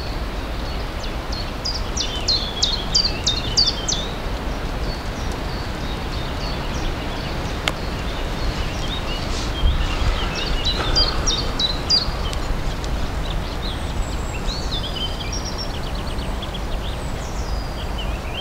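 Small songbirds singing in quick chirping phrases, in several bursts, over a steady low rumble of wind on the microphone.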